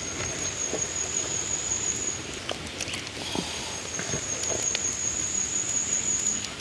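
A thin, high-pitched steady whine, heard twice for about three seconds each with a short break between, over a steady outdoor hiss and a few light knocks.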